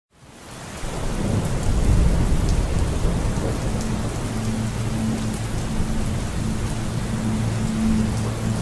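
Heavy rain falling, fading in over the first second, with a low rumble of thunder in the first few seconds. A low steady drone comes in about halfway.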